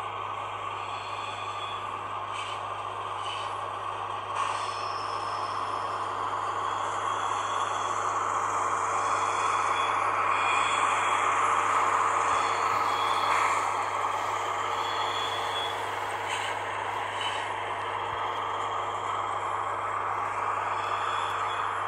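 PIKO model SM42 diesel shunter's sound decoder playing the running diesel engine through the model's small speaker. The sound grows louder as the locomotive comes close, peaking near the middle, then eases off.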